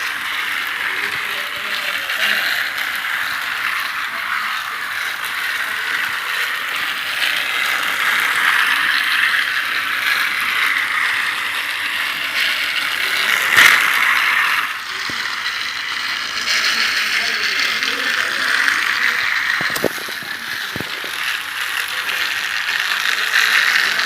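Battery-powered toy railcar running on its plastic track: the small motor and gears give a steady mechanical running noise. A single sharp click comes a little past halfway.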